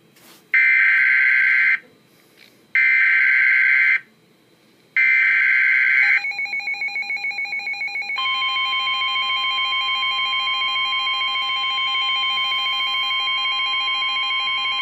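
Emergency Alert System tones for a severe thunderstorm warning. Three loud bursts of the digital header data, each about a second long with short silences between, are followed by a rapidly pulsing tone for about two seconds. Then a steady, shrill attention tone holds.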